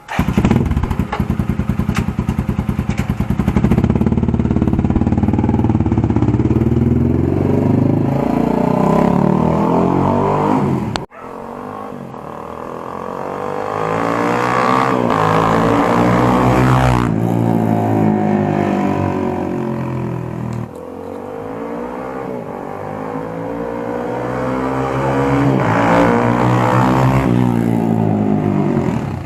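Motorcycle with an Akrapovic dual-outlet muffler, run open without its silencer insert, accelerating hard past the listener in a flyby, its exhaust note rising with the revs. The sound breaks off abruptly about 11 seconds in, then two more passes follow, each swelling and fading as the bike goes by.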